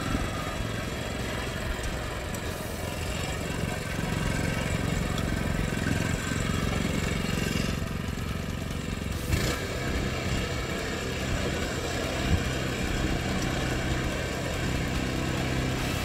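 Engine of a Neva MB-23 walk-behind tractor (MX250 engine) running steadily as it pulls a loaded trailer, with a few sharp knocks, the loudest about twelve seconds in.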